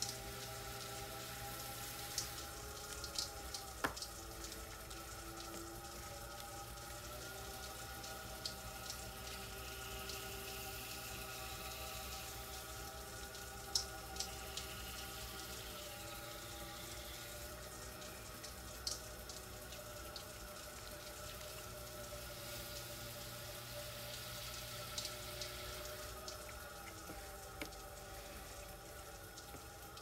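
Electric potter's wheel running with a steady hum that shifts slightly in pitch a couple of times, while wet hands work clay on it, making scattered wet squelches and drips of slip.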